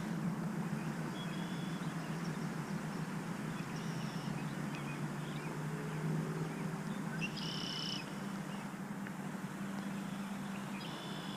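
Short high bird calls a few times, the longest about seven seconds in, over a steady low hum and background hiss.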